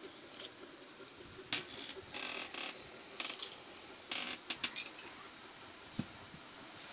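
Wooden cabinet drawer being pulled and handled: several scratchy scrapes and creaks of wood sliding on wood, a few sharp clicks, then a dull thump about six seconds in.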